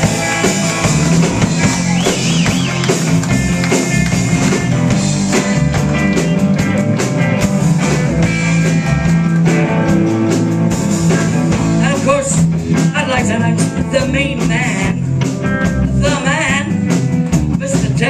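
Live blues band playing: electric guitars, bass guitar and drum kit together, with a lead line wavering in pitch over the top.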